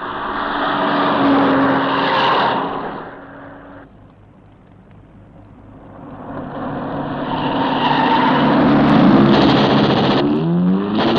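Car engine revving hard as a car speeds away, the sound swelling and fading twice: once in the first few seconds and again from about six seconds in, with the engine pitch rising near the end.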